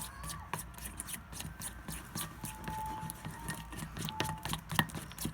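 Irregular small clicks and taps of a utensil stirring blue food colouring into white glue in a container.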